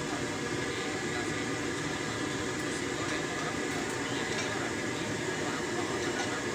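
Stir-fry of vegetables, chicken and meatballs sizzling and bubbling in a wok over the stove, a steady unbroken hiss.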